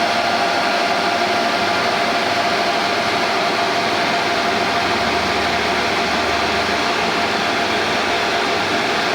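Steady, unbroken mechanical rushing noise with a constant mid-pitched whine, like a motor-driven blower running.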